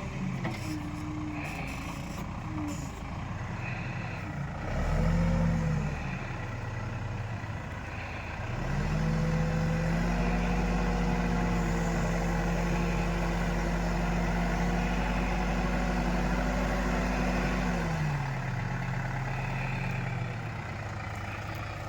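Heavy diesel engine running, revved briefly about five seconds in, then held at higher revs for roughly nine seconds before dropping back to a lower speed.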